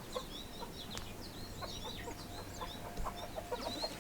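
Farmyard birds: chickens clucking, with many short high chirps from small birds throughout.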